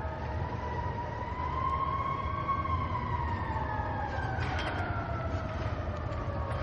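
Siren wailing, its pitch rising slowly to a peak a couple of seconds in and then falling away, over a steady low rumble.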